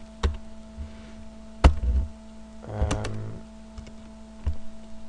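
Computer keyboard keys struck singly, about four separate taps spread out with pauses between them, the loudest about one and a half seconds in. A steady electrical hum runs underneath.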